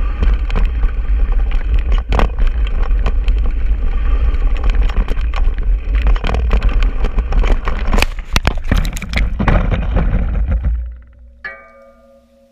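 Mountain bike descending a rough dirt trail at speed: a heavy rumble of air buffeting the camera microphone, with constant rattling clicks from the bike over the ground and a cluster of hard knocks about eight to nine and a half seconds in. The noise then drops away sharply as the bike stops after the rider's crash over the handlebars, and a ringing metallic tone starts and lingers.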